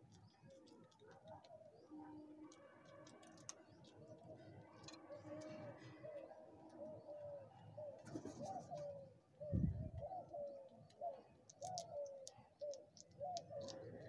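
Birds calling in short, repeated low notes, several a second, growing louder partway through, with faint high ticks, and one sharp thump about nine and a half seconds in.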